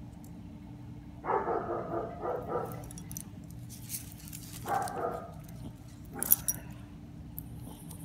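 Small dog barking close to the microphone: a quick run of short barks a little over a second in and another brief bark near the middle. A sharp knock comes a little past six seconds and is the loudest single sound.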